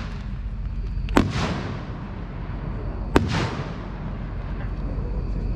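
Two sharp reports from 4-inch, 60 gram canister firework shells, about two seconds apart, each trailing off in a long echo, over a steady low rumble.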